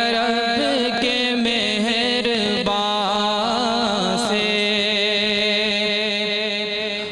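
A man's solo voice singing a naat in Arabic, drawing out a long ornamented line of held notes and melismatic runs without a break for words.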